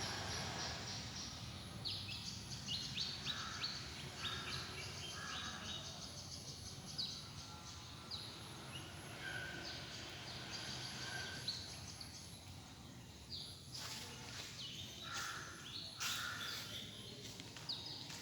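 Small birds chirping in quick, repeated high calls over a steady low outdoor rumble, with a few sharp clicks near the end.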